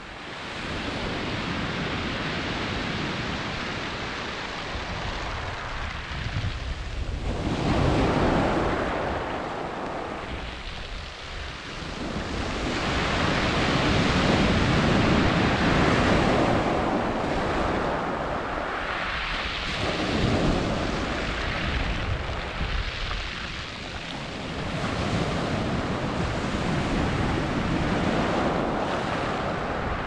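Sea waves breaking and washing up a steep shingle beach of pebbles. The surf rises and falls in several slow surges as each wave comes in and drains back.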